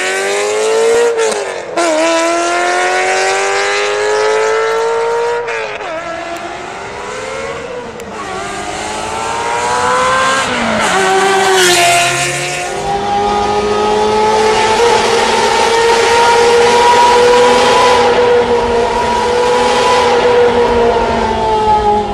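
Ferrari 348's 3.4-litre V8 through a Kreissieg aftermarket exhaust, accelerating hard through the gears with a high howl. The pitch climbs and drops back at each upshift, about 2, 5½, 8 and 12 seconds in, then holds high and nearly steady at speed, easing slightly near the end.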